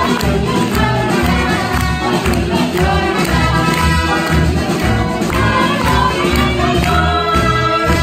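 Klezmer band with violins, trumpet, bass and drums playing a lively song with a steady beat, a woman's voice and group vocals singing over it. The tune closes on a long held note near the end.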